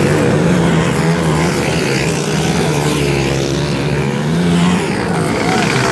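Dirt bike engines revving loud and steady, the pitch rising and falling with the throttle as a bike comes along the dirt track.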